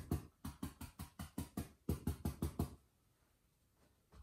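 Foliage brush dabbed lightly and rapidly against a stretched oil-painting canvas, a quick run of soft taps at about six a second that stops a little under three seconds in. This is stippling in the leaves of a bush, wet on wet.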